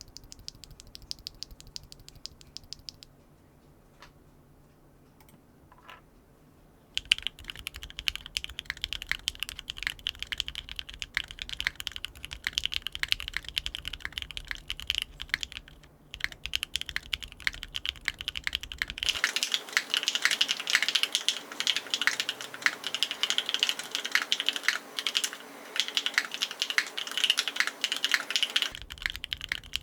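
Typing on a Luminkey 60 Pro mechanical keyboard fitted with UNIKEYS x BSUN Waves Rail bottom-out linear switches on a polycarbonate plate with no foams. Each keystroke gives a medium-pitched clack. A few keypresses come first, then a pause with only single clicks, then fast continuous typing from about seven seconds in that grows louder for the last ten seconds.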